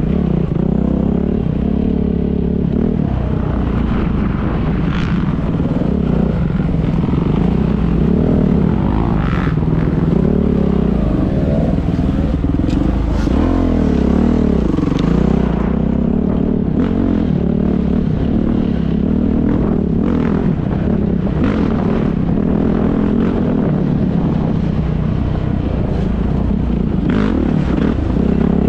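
Dirt bike engine running as the bike rides a rough trail, rising and falling in pitch with the throttle, with scattered knocks and rattles from the bike over the ground.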